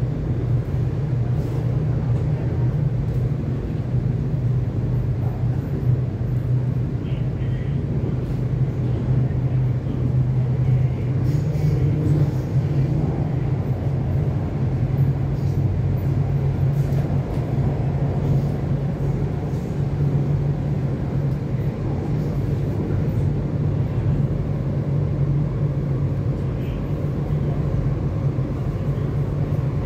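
MTR Kwun Tong Line C-Train running between stations: a steady low hum and rumble from the wheels and traction equipment, with a few faint ticks.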